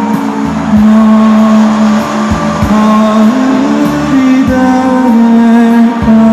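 Live music: a slow melody in long held notes that step up and down in pitch, over a full accompaniment.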